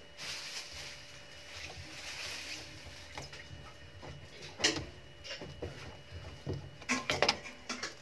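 Handling sounds at the washing machine's inlet hose fitting: a few light knocks and clicks, one sharp about halfway and a cluster near the end, over a low steady background.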